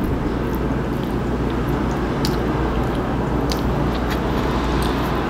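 Knife and fork clicking lightly against a dinner plate as food is cut, about half a dozen small clicks spread through, over a steady rushing background noise.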